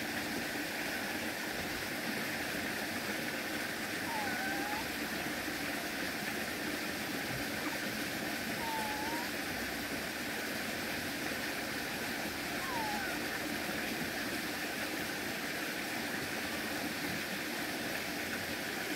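Steady rush of shallow water running over stone. A few short, faint chirps come and go over it, about three or four in all.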